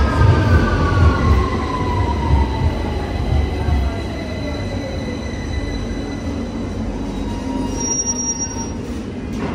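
London Underground Victoria line train pulling into the platform and braking: a heavy rumble of wheels with a whine that falls in pitch as the train slows over the first five seconds, then a steadier, quieter running hum with a thin high tone. A short high beep sounds near the end.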